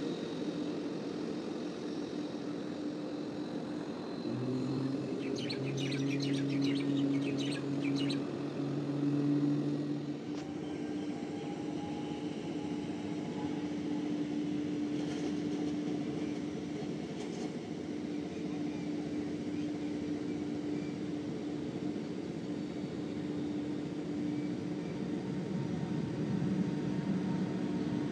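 Jet airliner engines running at taxi power, a steady hum, with birds chirping several times about five to eight seconds in.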